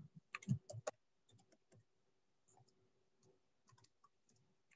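Typing on a computer keyboard: a quick run of key clicks in the first second, then only faint scattered taps.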